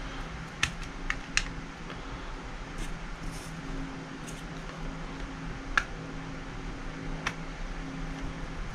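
Scattered small, sharp clicks of tools and parts being handled while the other grip panel of a KJ plastic airsoft Beretta M9 is taken off: three in the first second and a half, two more later. A steady low hum runs beneath.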